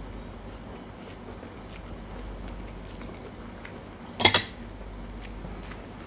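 Eating at a table: quiet chewing of stir-fried glass noodles and seafood, with small clicks of a fork and spoon on plates. One brief, louder clink of cutlery comes about four seconds in.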